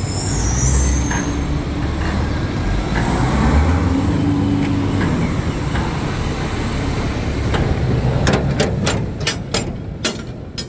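Heavy truck engine running with a steady low rumble, a brief high squeal near the start. In the last few seconds, a run of sharp clicks and knocks.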